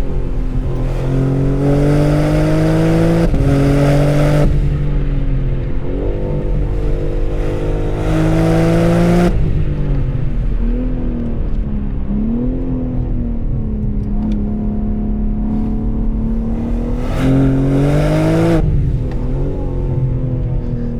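BMW M3 Touring (G81) twin-turbo straight-six on its stock exhaust, driven under load: the engine note climbs in three bursts of acceleration, with one drop in pitch at an upshift during the first, and falls back to a lower, steadier note off the throttle between them.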